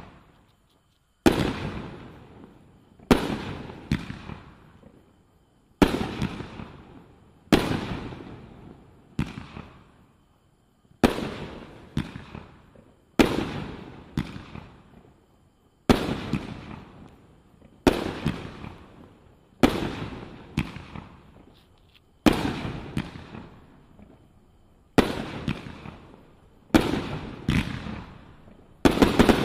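Brothers GlitterBomb 16-shot 500-gram firework cake firing shot after shot, one about every two seconds. Each shot is a sharp bang followed by a fading glittering tail, and some have a second report close behind.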